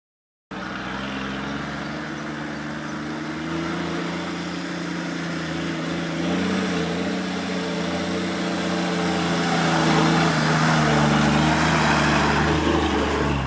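Off-road vehicle engine running under load, cutting in abruptly after a moment of silence and growing gradually louder, its pitch rising a little twice.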